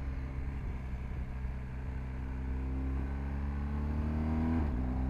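BMW R 1250 GS's 1254 cc boxer-twin engine running under load while riding uphill, its pitch rising slowly. There is a brief break and a slight drop in pitch near the end.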